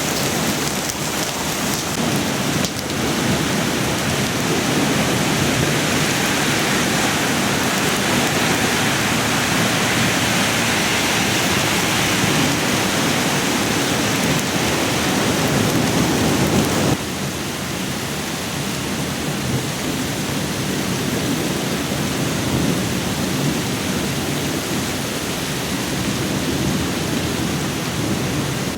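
Heavy rain pouring down in a thunderstorm, a steady dense hiss. It drops suddenly to a somewhat lower level about seventeen seconds in.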